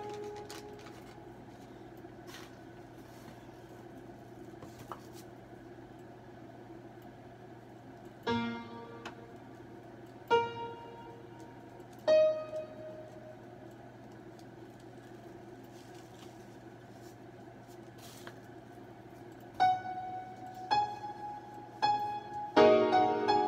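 Piano notes played from a MIDI keyboard through beat-making software, struck singly a couple of seconds apart, then a quicker run of notes and a chord near the end. A low steady hum sits underneath.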